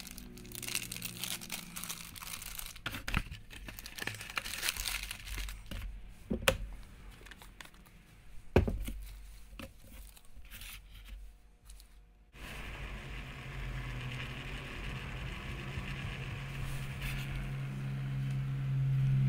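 Plastic MRE pouch crinkling and rustling as it is handled, with a few sharp knocks. About twelve seconds in this stops abruptly, giving way to a steady hiss and low hum that grows louder near the end.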